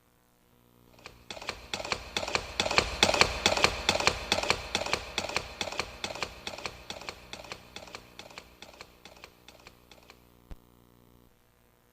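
A canned sound effect from a karaoke machine: a fast run of sharp clicks, about four or five a second. It builds up, is loudest around three seconds in, and fades away by about ten seconds.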